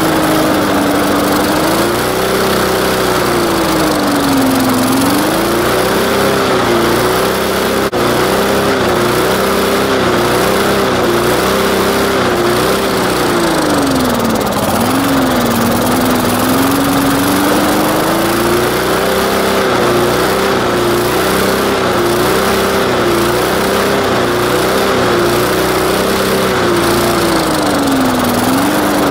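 Briggs & Stratton single-cylinder walk-behind lawn mower engine running on straight rubbing alcohol. It holds a steady speed but sags briefly and picks back up three times: about five seconds in, midway, and near the end.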